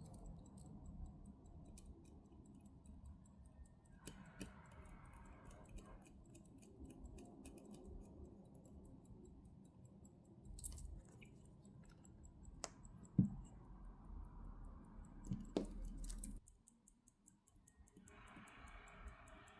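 Faint, quick, even ticking of a running Waltham Vanguard 18-size pocket-watch movement, with scattered small clicks and taps of tools and strap parts as a strap is fitted to the watch case. A few louder clicks come in the second half.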